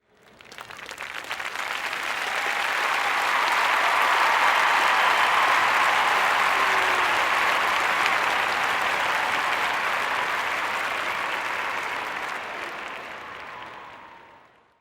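Large crowd applauding: the clapping builds over the first few seconds, holds steady, then dies away near the end.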